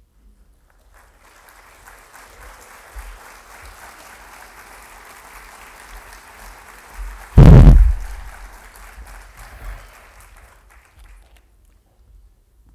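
Audience applauding, starting about a second in and dying away near the end. About seven and a half seconds in there is one loud, deep thump.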